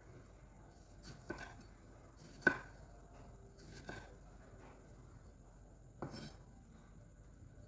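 Knife chopping on a cutting board: about five sharp, irregularly spaced strokes, the loudest about two and a half seconds in.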